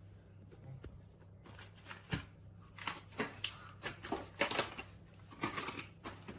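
Irregular short scraping and rustling strokes of food being handled and spread during lasagne assembly, over a steady low hum.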